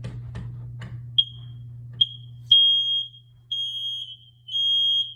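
Combination smoke and carbon monoxide alarm being tested: two short high chirps, then long, loud beeps on one high pitch about once a second.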